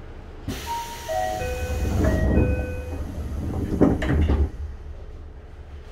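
Sliding doors of a Tokyo Metro 7000 series car closing. A short electronic chime of stepped tones plays over a sudden hiss, then the doors shut with thuds about four seconds in.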